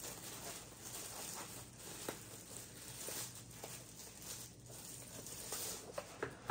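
Packaging being handled and opened: light rustling with scattered small clicks and taps as a small pixel display is unpacked.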